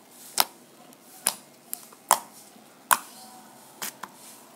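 Fingers pressing and poking soft blue glue slime, making sharp popping clicks: five loud pops about a second apart and a couple of smaller ones.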